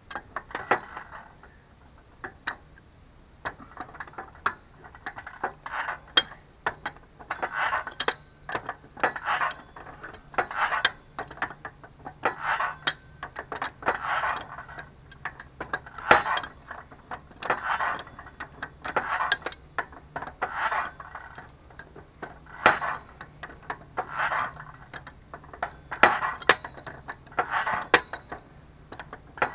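Metal-on-metal clinking and scraping from hand tools worked on the drill pipe and fittings at the base of a small well-drilling rig, in short bursts about every second or two.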